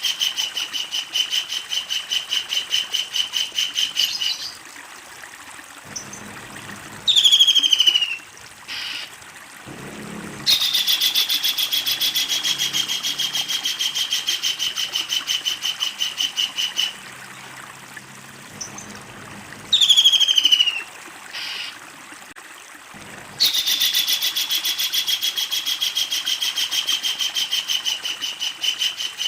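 Kingfisher calling: long runs of fast, evenly repeated high notes in a rattling trill, given three times, with a loud sharply falling call at about seven and again at about twenty seconds.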